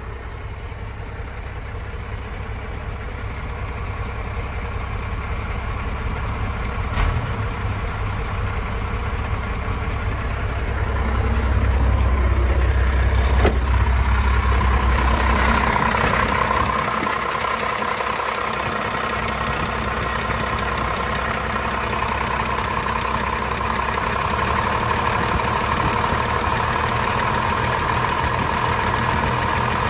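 1989 first-generation Dodge Ram's 12-valve Cummins 5.9 L inline-six turbodiesel idling with a steady low rumble. The rumble grows louder through the first half, and a steady higher whine joins it about halfway through.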